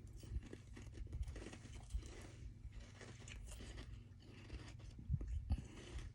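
Close-miked chewing of soft freezer-frost ice: a steady run of crisp, packed crunches, with a few louder bites near the end.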